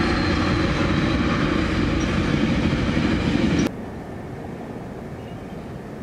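GO Transit commuter train passing, a loud steady rumble with a faint falling whine above it. It cuts off abruptly about three and a half seconds in, leaving a quieter steady background hiss.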